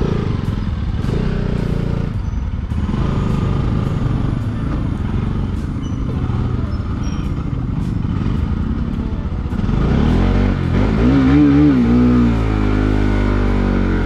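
Bajaj Pulsar NS200's single-cylinder engine running under way, with steady wind and road noise on the camera microphone. About ten seconds in, the engine gets louder and its pitch rises and wavers as the throttle is worked.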